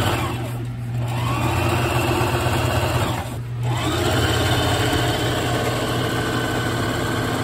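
Singer Heavy Duty electric sewing machine running at speed, zigzag-stitching an elastic loop onto a padded knee pad. It slows briefly and picks back up twice, under a second in and about three and a half seconds in.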